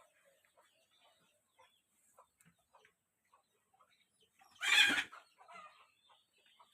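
Faint scattered clicks, then one short, loud, harsh farm-animal sound nearly five seconds in.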